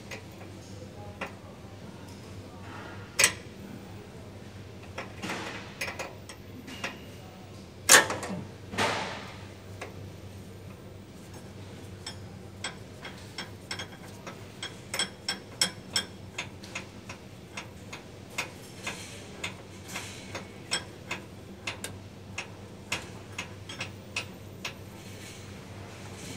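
Metal tools clinking and tapping on the steel drive parts of a moving walkway during work on its handrail drive chain: a few sharp clanks in the first ten seconds, then a run of lighter clicks about two a second, over a steady low hum.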